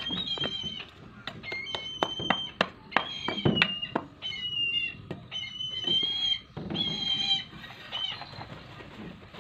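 Brahminy kite calling: a series of high, drawn-out whistled cries, each half a second to a second long, with sharp clicks among them. Its wings flap briefly on the handler's glove near the end.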